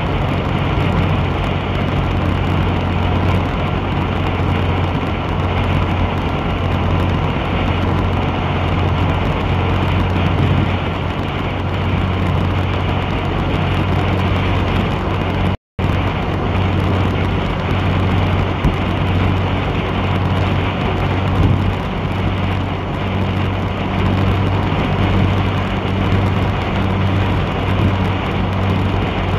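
A moving vehicle's engine with a steady low hum, over constant road and wind noise. The sound drops out completely for a split second about halfway through.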